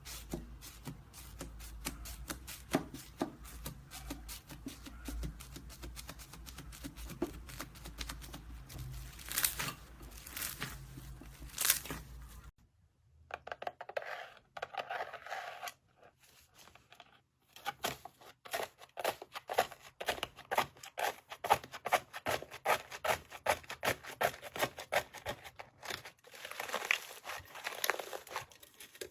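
Slime being squeezed and poked by hand, with crackling and popping clicks. About twelve seconds in, a cut leads to a second slime clip, and there the clicks come fast and close together.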